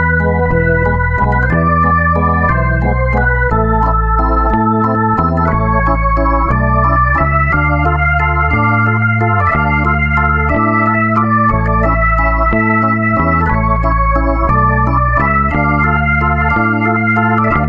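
Instrumental background music: held keyboard chords over a bass line that steps from note to note about every second.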